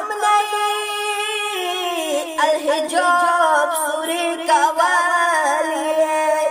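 A boy's solo voice singing one long, drawn-out melodic phrase of a Pashto devotional kalam, unaccompanied, the held notes wavering in small ornamented turns.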